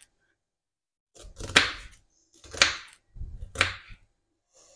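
Kitchen knife chopping on a wooden cutting board, three sharp strokes about a second apart, each with a short rustle as the blade goes through the food.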